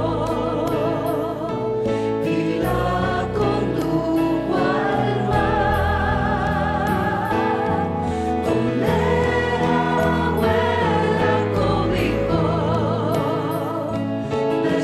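A musical-theatre song: a group of voices singing together over instrumental accompaniment, long notes held with vibrato.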